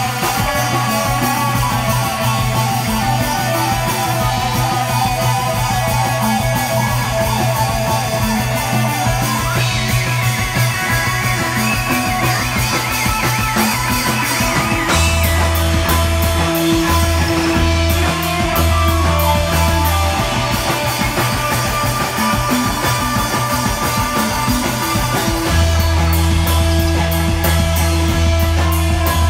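Live instrumental psychedelic rock band playing electric guitar, bass guitar and drum kit. A wavering high note sounds around the middle, and heavy deep bass notes come in about halfway through and again near the end.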